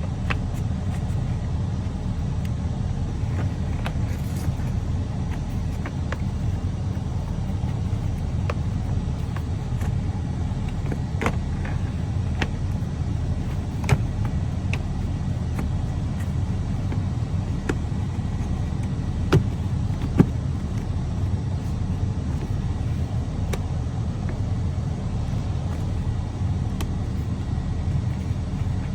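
Plastic door trim panel being pressed back onto a minivan's sliding door, with scattered clicks and a few sharp snaps from its clips over a steady low rumble.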